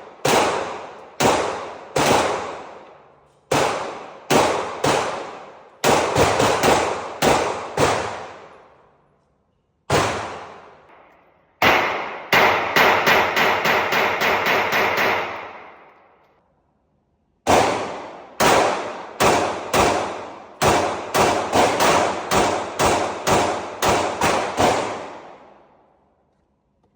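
Gunfire: volleys of single shots and a fast automatic burst about halfway through, each shot trailing off in a long echoing decay.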